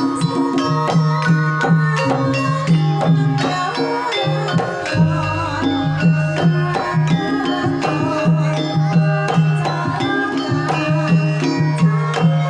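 Javanese gamelan music: bronze metallophones and gongs ringing in a steady rhythmic pattern, with hand-drum strokes.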